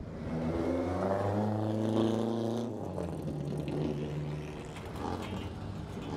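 A car engine passing by, its note swelling to a peak about two seconds in and then fading, followed by a lower, steadier engine hum.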